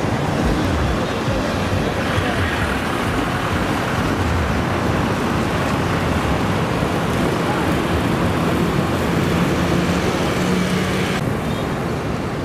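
Steady outdoor background noise with indistinct voices mixed in. A low steady hum comes in for a few seconds in the second half, and the sound changes abruptly shortly before the end.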